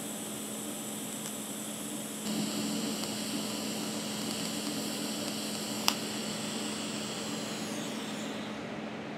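TIG welding arc on a steel pipe joint: a steady hiss over a steady hum, with one sharp click about six seconds in. The arc's hiss thins out near the end as the torch is lifted off.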